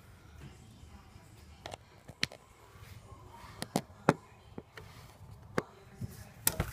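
Irregular light knocks and clicks of objects being handled and set down on a kitchen counter, about nine in all, the loudest a little past halfway.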